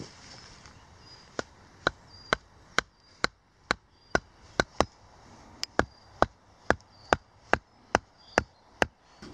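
A wooden carver's mallet knocking on the top of a wooden stake, driving it into the ground: a steady series of about eighteen sharp wood-on-wood blows, roughly two a second, starting about a second and a half in.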